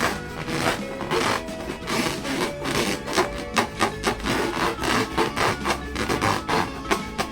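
Rubber balloons being squeezed and rubbed by hand, a quick, irregular run of rubbing strokes with short squeaks.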